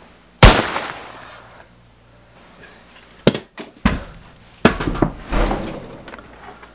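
A single gunshot about half a second in, with a long decaying tail. A few seconds later comes a run of knocks and heavy thuds as a body collapses onto the floor.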